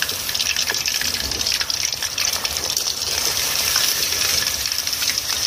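Batter-coated chicken 65 pieces deep-frying in hot oil in a steel kadai: a steady sizzle full of fine crackling pops, the chicken's first fry to about 85% done.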